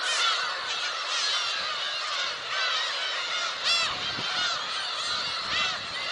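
Colony of black-tailed gulls calling overhead: a dense chorus of many overlapping calls, with one louder call about three and a half seconds in.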